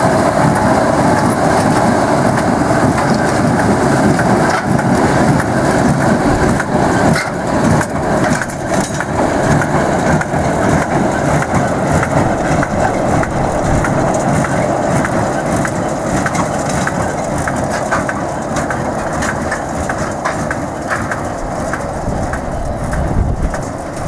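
A John Deere small square baler and a bale stacker running behind a tractor: steady machinery clatter with many sharp clicks and knocks, which grow more frequent after the first several seconds.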